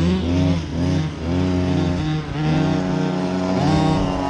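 Home-made RC buggy's two-stroke grass-strimmer engine revving up and down as it is driven, its pitch rising and falling several times with the throttle, held high for about a second in the middle.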